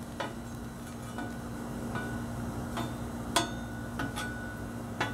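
Steel griddle spatula clicking and scraping against the flat-top steel griddle plate as toast slices are nudged and turned, several sharp clicks with the loudest a little past the middle, over a steady low hum.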